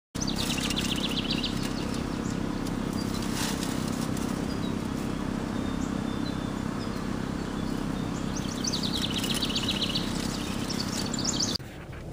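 A songbird trilling twice, each a fast run of even, high notes: a short trill near the start and a longer one near the end, over a steady low outdoor hum. The outdoor sound cuts off suddenly just before the end.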